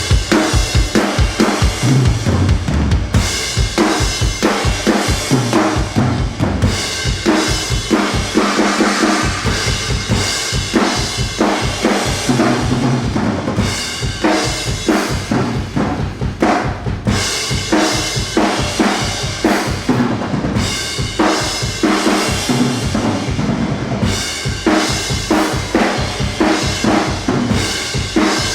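Music with a drum kit playing a steady beat of bass drum and snare.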